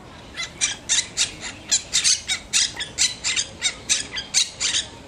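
Monk parakeet giving a rapid, chattering series of short, harsh squawks, about four a second.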